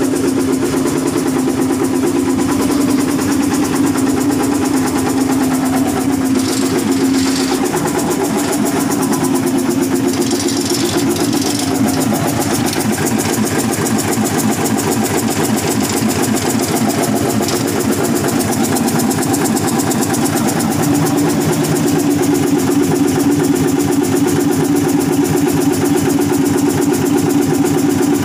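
Hino EM100 inline-six diesel engine running at idle, newly revived after four years standing unused, its speed shifting slightly now and then.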